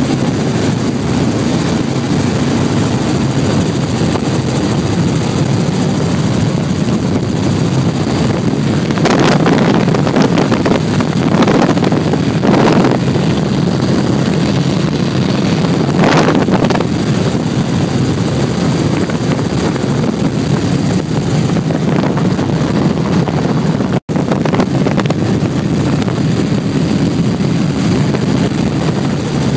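Light helicopter's engine and rotor running steadily, heard from inside the cabin in flight. A few short rushing swells rise over it around the middle, and the sound cuts out for an instant near the end.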